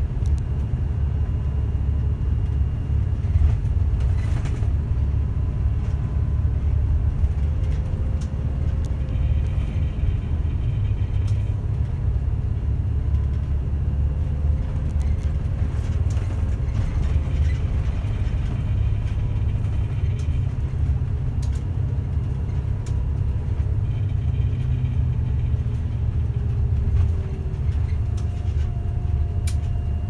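Route bus running along a road, heard from inside the cabin at the front: a steady low rumble of engine and road noise.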